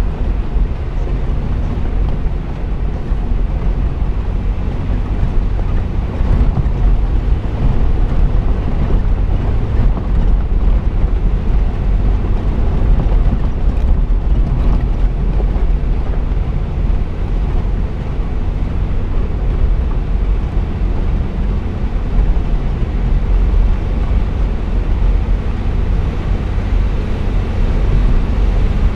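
Jeep driving on a gravel dirt road, picked up by a camera mounted on the hood: a steady, loud low rumble of engine and tyres, with wind on the microphone.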